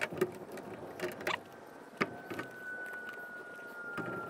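Light clicks and knocks as a new headlight unit is handled and pressed into its chrome surround. About halfway through, a faint steady whistle-like tone starts and slowly falls in pitch.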